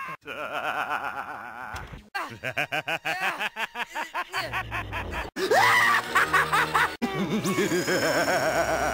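The Joker laughing in his cartoon voice: several short bursts of rapid laughter cut together back to back, with background music under it.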